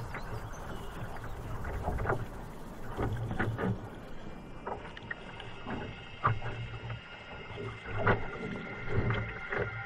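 Kayak paddle blades dipping and splashing in choppy sea water at an irregular stroke rhythm, with water slapping against the boat's hull.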